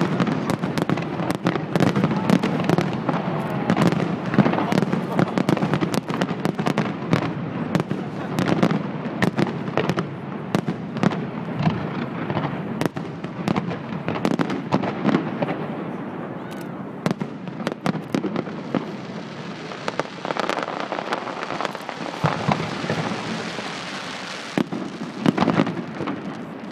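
Fireworks display: a dense, continuous run of shells bursting, with many sharp cracks and bangs over a rolling rumble. It eases somewhat past the middle, then crackles up again near the end.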